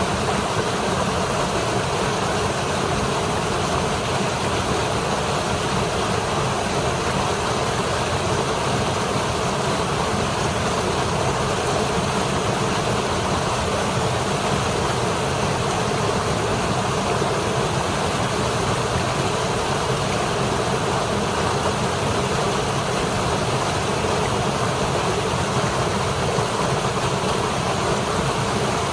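Waterfall rushing steadily over rocks.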